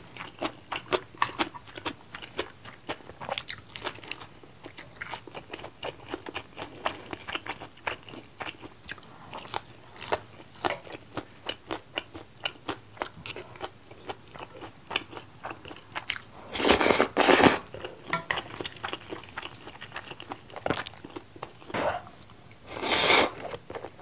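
Close-miked chewing and crunching of food, with many small wet mouth clicks. Two louder slurps of instant ramen noodles come about 17 seconds in and again near the end.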